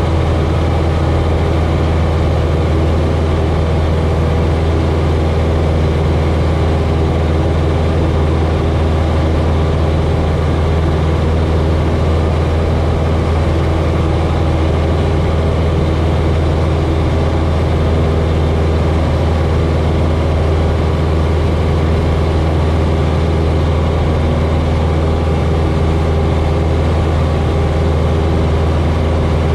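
1947 Cessna 140's four-cylinder air-cooled engine and propeller droning steadily in flight, heard from inside the cockpit.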